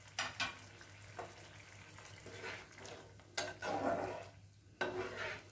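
Metal spatula stirring and scraping through a thin poppy-seed and yogurt gravy in a frying pan, just after water has been added: a few light clicks, then two longer scraping strokes in the second half.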